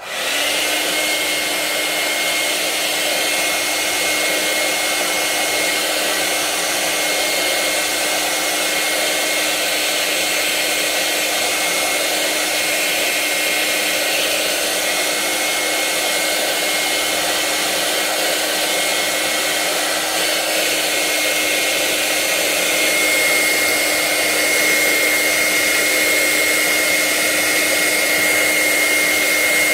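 Handheld hair dryer switched on and running steadily, a rush of air with a low hum and a thin high whine; it gets a little louder about three-quarters of the way through.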